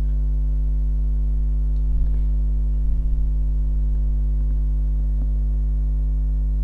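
Steady electrical mains hum, a low buzz with a stack of overtones, picked up in the recording. A few faint clicks sound over it about two to three seconds in and again near five seconds.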